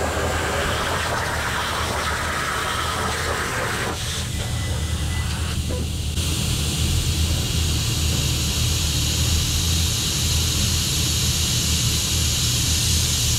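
CNC plasma cutter on a Langmuir Crossfire Pro table hissing as the torch cuts steel plate, the arc cutting off about four seconds in; a steady air hiss and machine hum carry on after.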